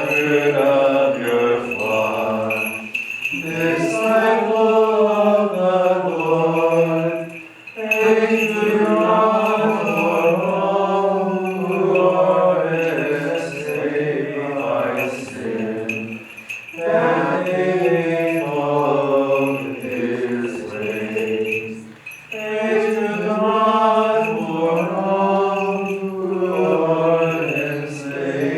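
Byzantine liturgical chant: voices singing slow, sustained melodic phrases, with short breaks for breath between phrases every few seconds.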